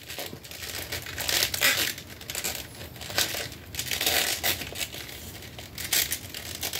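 Plastic and soft rubbery parts of a large Sentinel action figure being handled. They make irregular rustling, scraping and small clicks as hands try to force a piece back into its socket.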